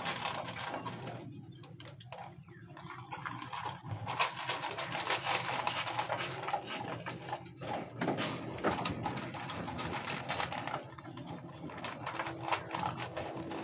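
A dog eating dry kibble from a stainless steel bowl: a dense run of quick, irregular crunches and clicks as the pellets are chewed and knocked about in the bowl.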